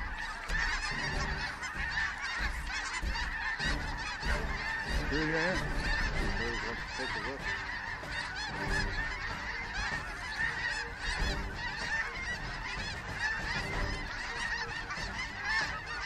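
Large flocks of geese honking overhead: a continuous, dense chorus of many overlapping calls.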